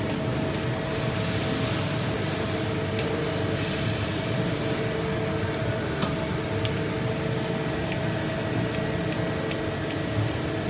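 CNC machine running: a steady mechanical hum with several held tones. A few faint ticks sound through it, and two brief bursts of hiss come about one and a half and four seconds in.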